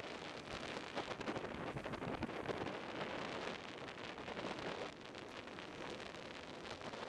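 Skateboard wheels rolling fast on asphalt, a steady grainy rush mixed with wind buffeting the microphone.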